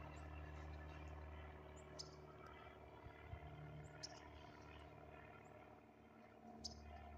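Faint, steady drone of a distant airplane's engine passing high overhead. Short high chirps, likely from a bird, come about every two seconds.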